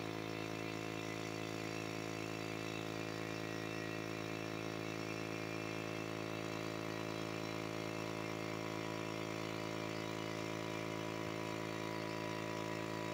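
Portable air compressor running steadily, an even hum that does not change in pitch or level.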